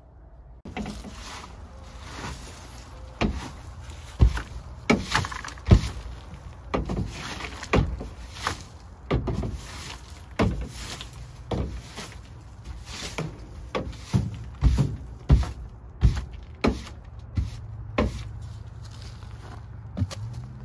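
Dry dead leaves and debris being raked out of a station wagon's cargo area with a hand tool: a long, irregular run of crunching, scraping strokes, about one to two a second.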